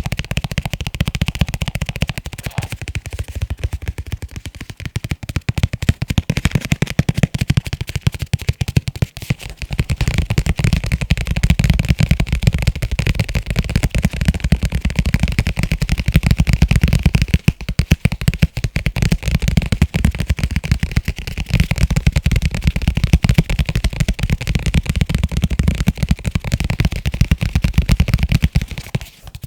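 Fingertips and nails tapping fast on leather cases, a dense stream of quick taps with dull low thumps, slackening briefly a couple of times.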